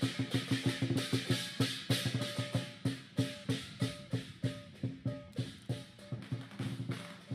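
Lion dance drum and cymbals playing a fast, steady beat, several strikes a second, getting quieter over the last few seconds.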